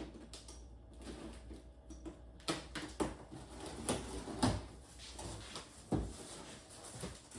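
Large cardboard shipping box being opened by hand: the top flaps are pulled and folded back, with scraping and rustling of cardboard and a few sharp knocks.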